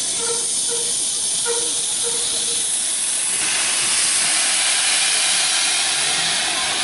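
Steam locomotive letting off steam in a steady hiss that swells louder and brighter about three and a half seconds in.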